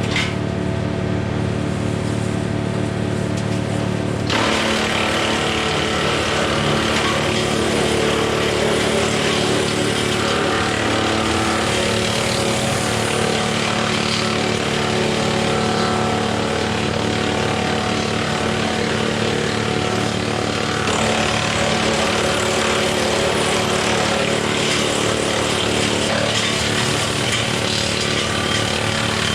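John Deere 4066R diesel tractor engine running steadily. About four seconds in the sound turns louder and noisier, with the engine still running underneath.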